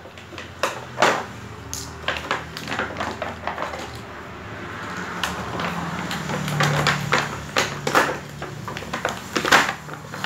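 Clear plastic packaging crinkling and rustling as it is pulled off a toy by hand, with irregular sharp clicks and knocks of small plastic toy pieces.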